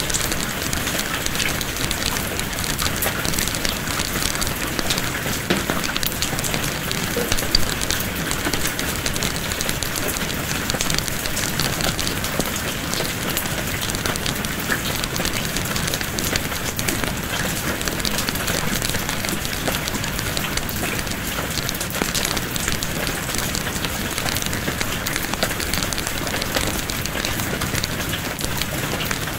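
Steady rain falling, with a wood fire crackling in a fireplace: an even hiss scattered with many small pops and ticks.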